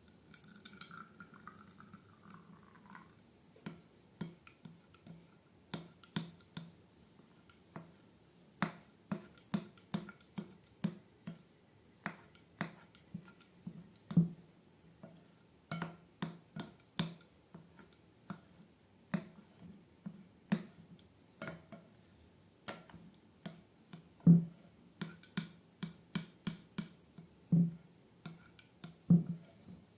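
Slime being squeezed and poked by hand, giving short sticky clicks and pops at an irregular pace of about one or two a second, with a few louder pops.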